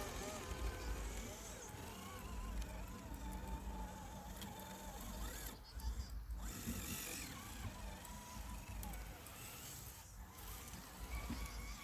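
Small electric motor of an RC crawler whining, its pitch rising and falling with the throttle, with wind rumbling on the microphone.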